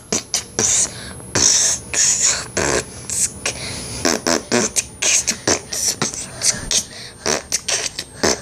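Mouth-made beatbox dance beat: quick clicks, hissed snare-like bursts and short voiced hums, about three or four sounds a second in a loose rhythm.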